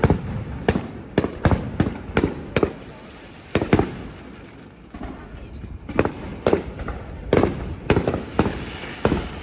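Aerial fireworks bursting in quick succession: sharp bangs about two a second, with a short lull around the middle of the stretch.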